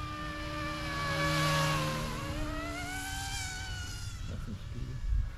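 Electric motor whine and rotor buzz of a YXZNRC F09 Black Hawk scale RC helicopter in flight, growing louder as it passes about a second and a half in. Its pitch slides down, then climbs again as it flies on.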